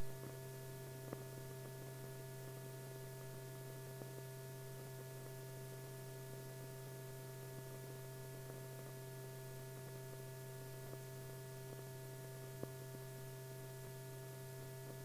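Steady low electrical hum with a faint hiss and a few faint clicks: the wordless noise of an old film soundtrack.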